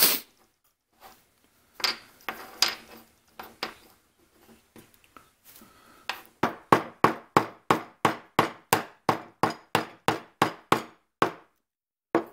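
Mallet striking a chisel to chop out a notch in a small hardwood block: a few scattered knocks, then a quick, even run of about twenty strikes, about four a second, and one more knock near the end.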